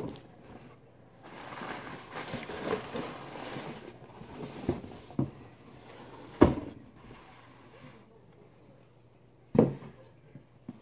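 Cardboard shipping box being handled and opened: rustling and scraping of cardboard, with a few knocks, the loudest about six and a half seconds in and another shortly before the end.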